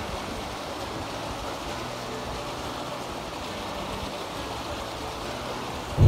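Shallow stream running over stones, a steady rush of water.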